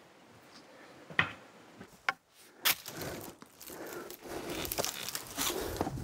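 Footsteps and scuffs on rocky ground: a few faint scattered clicks, then scraping and rustling that grows louder over the last two seconds.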